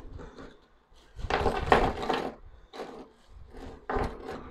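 Plastic bubble-wrap packaging rustling in the hands, with knocks of small metal clips and holders being set down on a wooden desk. It comes in several irregular bursts, the longest about a second in.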